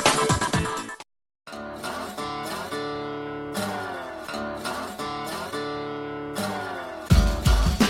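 Intro music. A dense electronic track cuts off about a second in, followed by a brief silence. Then a plucked acoustic guitar plays, and drums and bass come in near the end.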